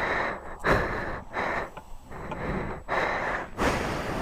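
A man's heavy, rapid breathing close to the microphone, a breath roughly every half second to second.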